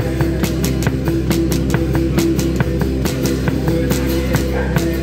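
Live rock band playing: electric guitar over a drum kit keeping a steady beat of about four to five hits a second.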